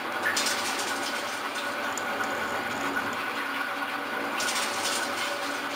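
Metal shaper running, facing carbon steel plate: a steady mechanical clatter of the ram and feed, with louder hiss twice, about a quarter-second in and again near the end.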